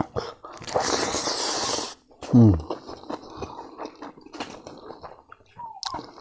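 Mukbang eating sounds of a man eating rice and roasted pork fat by hand: a loud noisy slurp lasting about a second near the start, a short 'mm' falling in pitch, then wet chewing and lip smacking with many small clicks.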